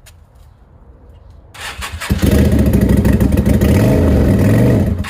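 Lifan LF250-H motorcycle engine starting about a second and a half in, then running loud through a curved-pipe exhaust, its pitch rising and falling once. The engine cuts off suddenly at the end.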